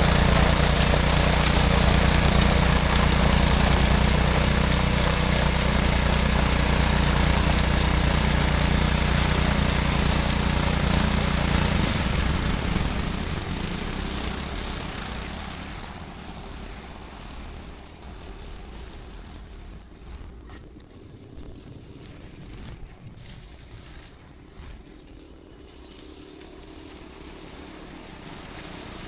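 Small engine of a snowblower running steadily, then dying away from about twelve seconds in to a faint hum that grows again near the end.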